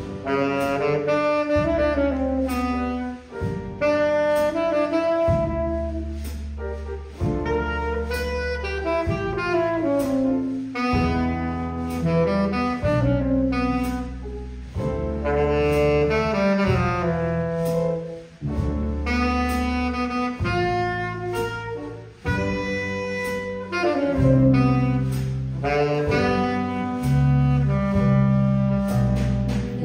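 Saxophone playing a flowing jazz melody line, accompanied by a small jazz combo with piano, guitar, bass and drums underneath.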